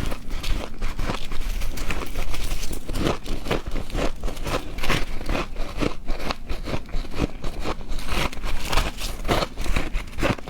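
Ice being bitten and chewed close to the microphone: a rapid, irregular run of loud crunches and crackles.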